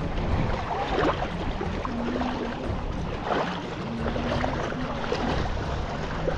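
Steady wash of sea water and wind around a small fishing boat at sea.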